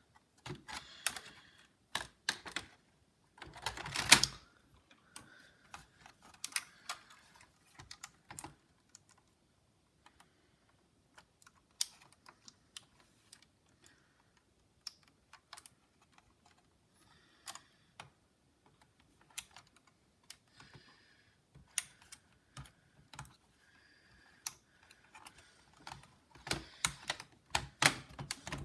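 Scattered light plastic clicks and taps of a Dell Inspiron 1545 laptop's case and internal parts being handled while its touchpad cable is rerouted and connected during reassembly. One sharper, louder knock comes about four seconds in, and a quick run of clicks comes near the end.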